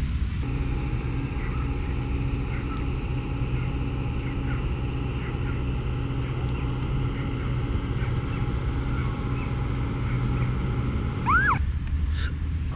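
Steady low engine-like hum over a rumble, with faint bird chirps scattered through it. Near the end there is one short, louder whistle that rises and falls.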